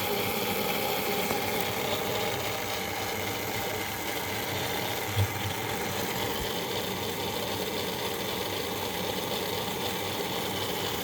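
Small electric motor and gearing of a Tri-ang R.56 Baltic tank model locomotive running steadily with a whir, with one brief low knock about five seconds in.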